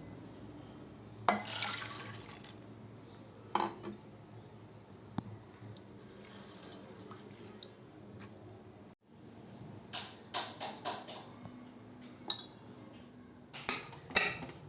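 Kitchen work sounds: splashes of water and clinks of pots and utensils in short, irregular bursts, with a quick run of about five knocks around ten seconds in.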